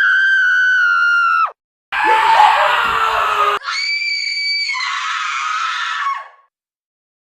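Three screaming sound effects in a row, with abrupt cuts of silence between them. The first is a high, steady shriek that drops away at the end. The second is rougher and noisier, and the third is high and then falls in pitch before fading out.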